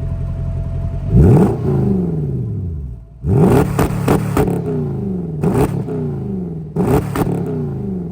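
Mercedes-Benz R129 SL500's 5.0-litre V8, warmed up, revved with repeated quick throttle blips: each one rises sharply and then falls back toward idle, the first about a second in and several more in quick succession in the second half.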